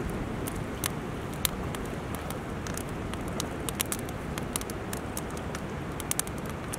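Wood campfire burning under a grate, crackling with many irregular sharp pops over a steady low rumble.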